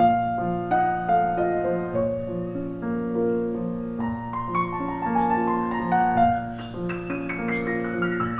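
Background piano music: gentle notes over a steady low bass, growing busier near the end.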